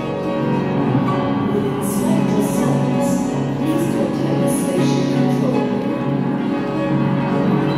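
Upright piano being played, with several notes held and sounding together.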